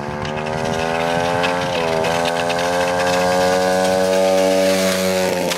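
110 cc pitbike's single-cylinder four-stroke engine running steadily under load while towing a heavy air conditioner unit, its note dipping briefly about two seconds in, then slowly rising in pitch and getting louder as the bike comes closer.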